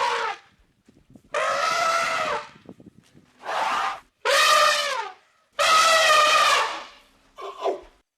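An animal giving a series of about five brassy, trumpet-like calls, each up to a second or so long, held steady in pitch and dropping at the end.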